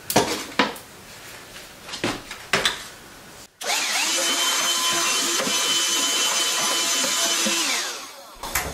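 Handheld vacuum switched on about three and a half seconds in, its whine rising as it spins up, running steadily while it sucks out a wooden drawer, then switched off and winding down near the end. Before it, a few knocks and rustles of things being handled.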